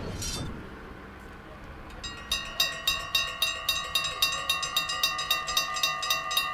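Dutch level-crossing warning bell starting to ring about two seconds in, with fast, even strikes at about three a second that keep on ringing. This marks the crossing activating for an approaching train.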